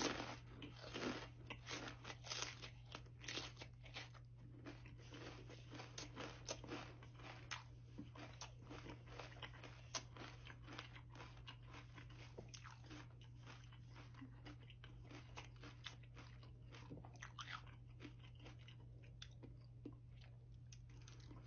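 Close-up crunching and chewing of Takis Blue Heat rolled tortilla chips: crisp crunches come thick and fast at first, then thin out to sparser chewing. A faint low hum runs underneath.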